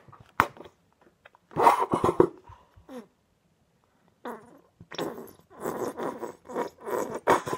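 Plastic squeeze bottle of Fairy washing-up liquid being squeezed upside down, sputtering air and liquid from its nozzle in rough squelching bursts: one at about a second and a half in, then a run of them from about four seconds in.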